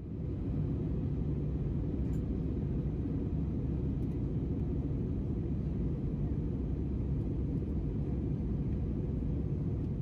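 Airliner in flight heard from inside the cabin: a steady low rumble of engine and airflow noise.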